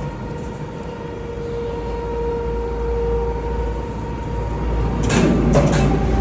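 Machinery running with a steady hum over a low rumble. About five seconds in come a loud scrape and a couple of knocks.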